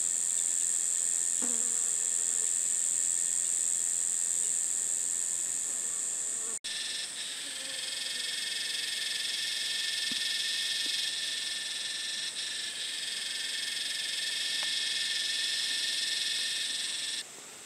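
A loud, steady, high-pitched chorus of cicadas in eucalypt bush. It breaks off for an instant about six and a half seconds in. After the break, a lower, fuller layer of buzzing joins the high drone, and both cut off suddenly near the end.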